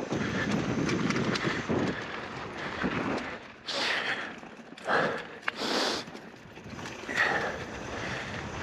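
Polygon Siskiu N9 mountain bike riding down a dirt flow trail: tyres rolling over dirt and gravel, with the chain and frame rattling and wind rushing past the microphone. A few brief louder rushes come about four to six seconds in.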